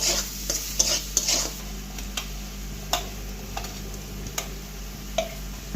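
A spatula stirring ground spices and onions frying in oil in a kadai: a quick run of scrapes at first, then single clicks of the spatula against the pan about once a second.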